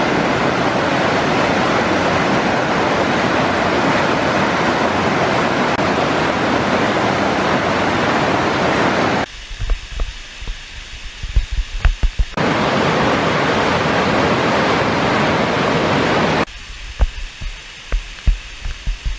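Tarawera Falls roaring: a loud, steady rush of falling water. It cuts off abruptly twice for about three seconds, leaving quieter low rumbles and thuds of wind buffeting the microphone.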